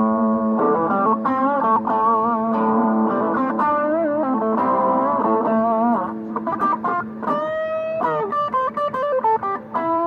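Guitar playing a melody of bent, wavering notes over a held low note. About seven seconds in, the playing breaks into shorter, choppier notes.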